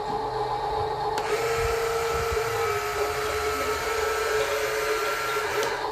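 Electric lift motor and gearbox of a Huina 1573 RC dump truck whining as they raise the tipping bed. The whine starts about a second in and stops near the end, over a steady hum.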